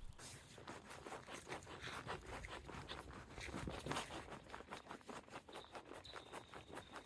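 Quick, irregular rustling and scraping of camping gear being handled during setup.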